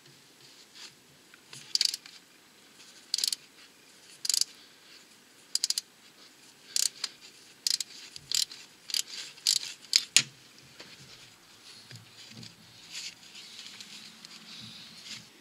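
Timing belt tensioner on a Renault 1.5 dCi diesel being adjusted by gloved hands: about a dozen light, irregular metallic clicks and taps of tool and parts during the first ten seconds, then softer rustling of handling.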